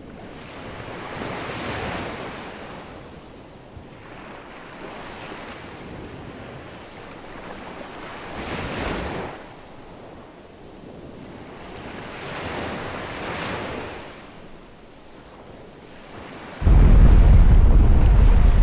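Ocean surf, waves washing in and drawing back in slow swells every few seconds. About seventeen seconds in, a sudden, loud, deep rumble breaks in and takes over.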